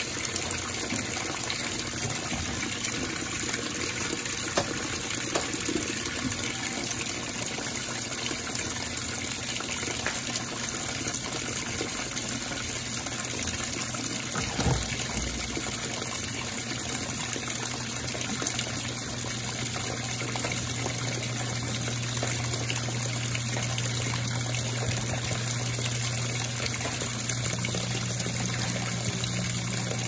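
Electrolux Perfect Wash Turbo LT12F top-load washing machine recirculating rinse water: a steady gush of water pours from the cascade spout into the tub over the clothes, over the hum of the machine's pump, which grows louder about halfway through. A single low thump comes about halfway through.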